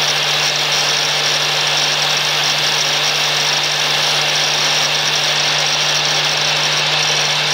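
Angle grinder in a cut-off stand running steadily, its abrasive disc cutting a steel blade from old scissors: a constant motor hum under a hissing grind.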